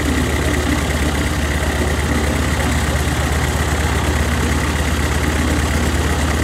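Junkers Ju 52's Pratt & Whitney Wasp nine-cylinder radial engines idling steadily after start-up, a constant low drone.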